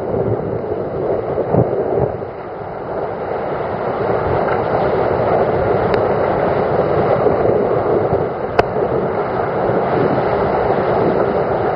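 Racing sailboat hull rushing through the sea at high speed in strong wind: a steady roar of water and wind, with wind buffeting the microphone, growing louder after about three seconds. Two short sharp clicks sound about halfway through and again later.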